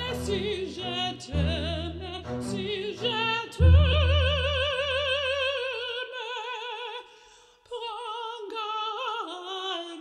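Background music: an operatic voice singing with a wide vibrato over a low accompaniment that drops away about six seconds in. The voice slides downward near the end.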